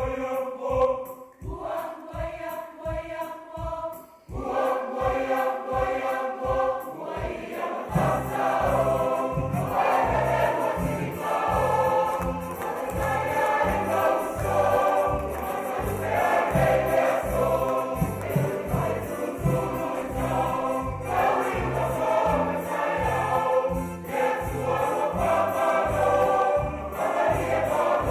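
Choral music: a choir singing over a steady beat, with a fuller bass line joining about eight seconds in.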